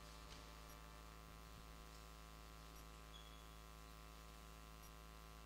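Near silence: a faint, steady electrical hum with a few faint ticks.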